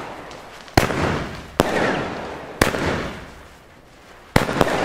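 Weco Big Crackles firework battery firing: five sharp bangs, the last two close together near the end. Each is followed by a dense crackle from its crackling peony stars.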